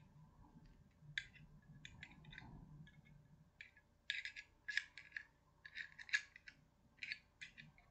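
Faint, irregular clicks and light scrapes of a Zippo lighter's metal insert being handled as a wick is fitted into it, the clicks coming more thickly in the second half.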